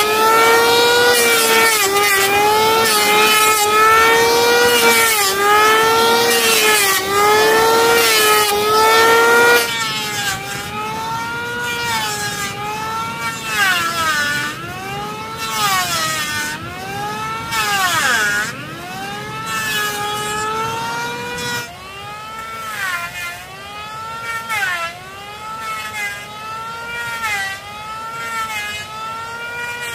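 Electric hand planer running and cutting wood, its motor whine dipping in pitch and recovering over and over as the blade bites on each pass. It is louder for about the first ten seconds, then softer.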